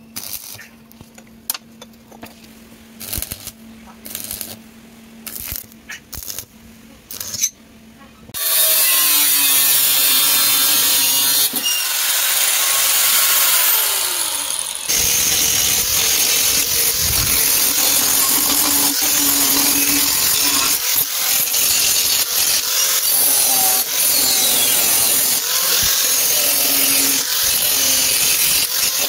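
Stick (arc) welding on the steel chassis of a 1980 Vespa PX150: short crackling bursts of the arc over a steady hum. About eight seconds in, an angle grinder starts and runs loud and continuous with its disc against the steel, throwing sparks.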